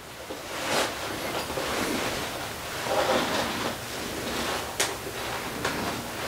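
Rustling of clothing and a stiff leather belt being pulled through trouser loops and fastened at the waist, with a sharp click about three quarters of the way through.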